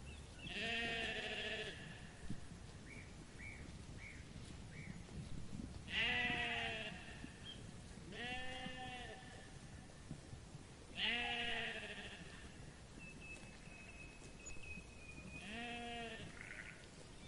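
Sheep in a flock bleating: five long, quavering bleats a few seconds apart, the loudest about six and eleven seconds in.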